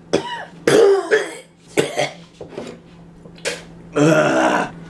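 A man coughing and gagging, a string of short harsh coughs, then a longer drawn-out noise from the throat about four seconds in: a gag reaction to a food he is tasting.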